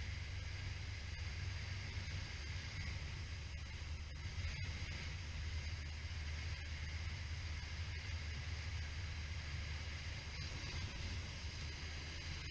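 Suzuki SV650 motorcycle's V-twin engine running at steady revs under an even hiss of wind and road noise.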